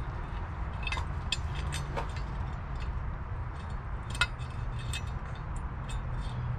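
Scattered light metallic clinks and taps as bolts and washers are fitted by hand into a Dirty Dingo motor-mount adapter bracket on an LS engine block, the sharpest about four seconds in. A steady low rumble runs underneath.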